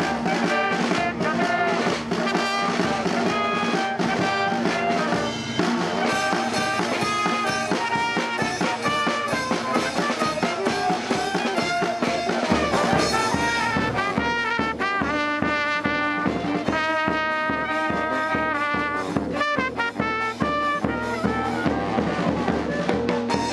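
Street band playing live: trumpet and saxophones over snare drum and cymbals. A steady low drum beat comes in about halfway.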